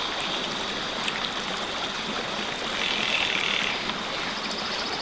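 Steady rush of flowing river water, swelling slightly about three seconds in.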